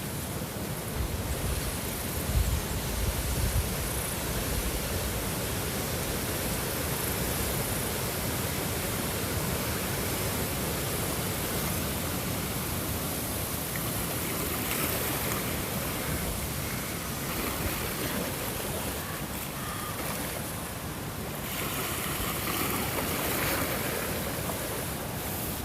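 Steady rushing water, an even wash of noise with slight swells and no music.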